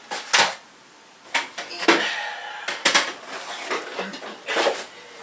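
Boxes and other objects being rummaged through and shifted, in a search for a storage box: about six separate knocks and clatters, spread irregularly.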